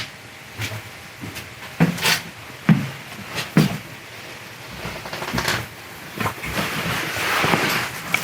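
A series of separate knocks and thuds, roughly one every second, with a rustling rush near the end.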